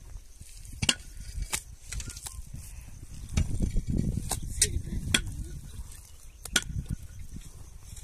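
Wet mud-and-straw plaster being grabbed, slapped and pressed by hand into the gaps of a stone wall, giving a scattering of sharp wet clicks and crackles. Under it runs a low wind rumble on the microphone, heaviest around the middle.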